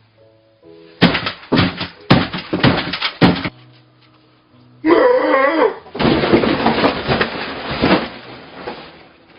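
Background music with a run of loud, sharp crashing knocks, then a short wavering pitched sound and about two seconds of dense, noisy sound.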